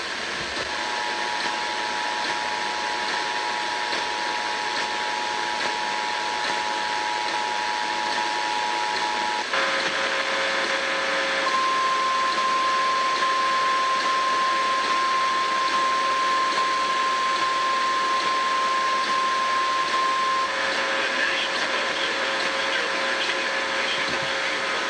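Emergency Alert System attention signals over constant radio hiss. First the steady two-tone alert tone sounds for about nine seconds. Then, after a brief change, the single steady NOAA Weather Radio warning alarm tone sounds for about nine seconds, with a lower steady tone underneath through the second half.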